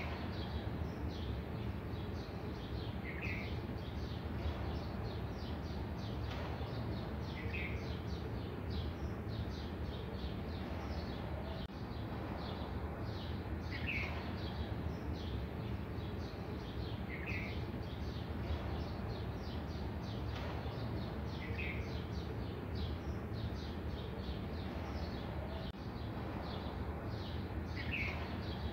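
Birds chirping: a dense, rapid twittering, with a short, clearer call coming back every three to four seconds, over steady low background noise.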